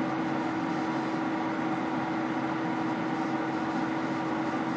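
Steady electrical hum from the cabinet's power supply unit, one constant pitch with a faint hiss over it.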